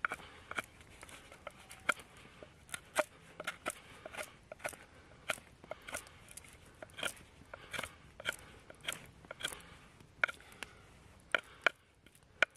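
Knife blade carving a piece of wood, shaving chips off to make a point: a run of short, crisp cuts, roughly two a second, with two louder ones near the end.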